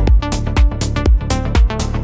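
Electronic dance background music with a steady kick-drum beat, about two beats a second, under synth chords.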